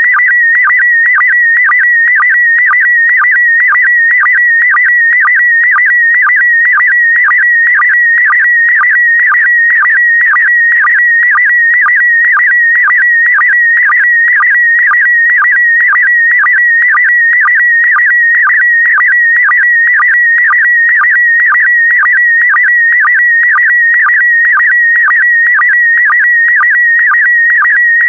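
Slow-scan television (SSTV) picture signal in PD120 mode: a continuous warbling tone around 2 kHz whose pitch shifts with the brightness of the image being sent, broken by a short, lower sync blip about twice a second.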